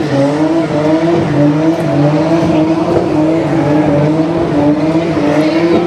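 Nissan R33 Skyline GTST's turbocharged straight-six held at steady revs through a burnout, its pitch wavering slightly, over the hiss and screech of the rear tyres spinning on the tarmac.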